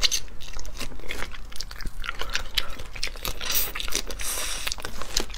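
Close-miked biting and chewing on boiled crayfish: a rapid run of crisp cracks and crunches as the shell and legs break between the teeth, growing denser about three and a half seconds in.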